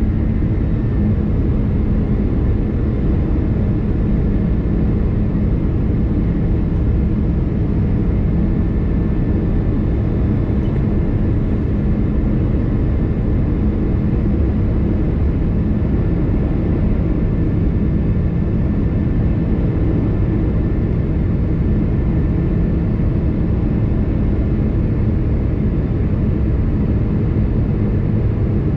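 Airbus A330-200 cabin noise: jet engines and airflow heard from inside the passenger cabin as a steady, loud rumble with a constant hum.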